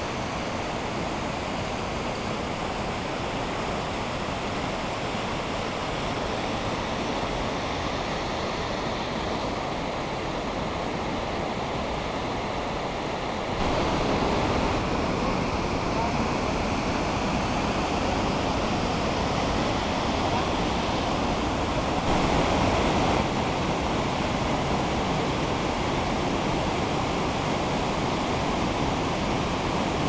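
White water of a boulder-strewn mountain stream rushing over rocks and small cascades: a steady, dense rush that steps up louder about 13 seconds in.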